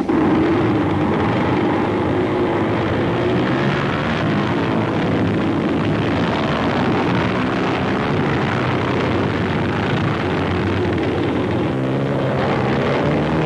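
Many motorcycle engines running together as a pack of racers rides off from a massed start, a loud, steady drone of several engine notes that drift up and down.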